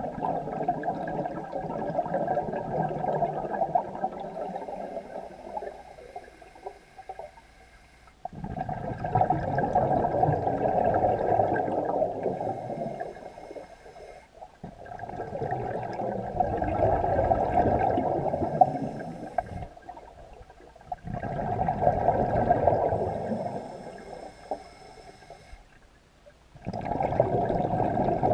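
Scuba diver breathing through a regulator, heard underwater: bubbly exhalations of about three seconds come roughly every six seconds, with quieter gaps between, five times in all.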